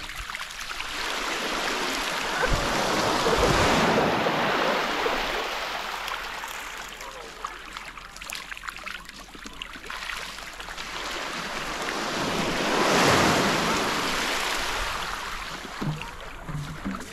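Small surf washing up a gravel beach into shallows churning with spawning capelin, a seething hiss that swells twice, about ten seconds apart.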